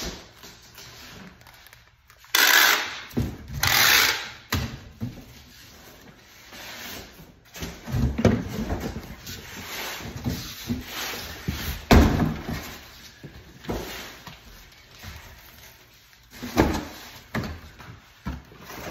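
Packing tape pulled off a handheld tape-gun dispenser in two loud rips, each about half a second, a couple of seconds in. Then a run of knocks and rustles as a cardboard box is handled, with the sharpest knock about twelve seconds in.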